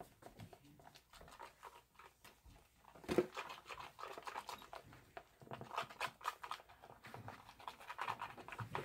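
Spoons stirring and scraping blue glue slime in plastic containers as Tide detergent activator is mixed in: irregular scratchy, sticky stirring with small clicks, and a sharp knock about three seconds in.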